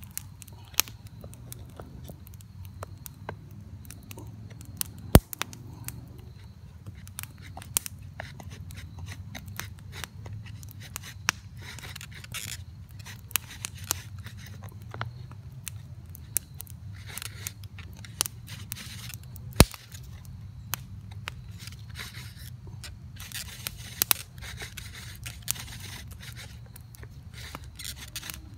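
Bow drill being worked: the carved wooden spindle scraping in the fireboard notch with each stroke of the bow, in repeated bursts that come thicker in the second half, among sharp clicks and knocks from the bow, cord and spindle, two of them much louder.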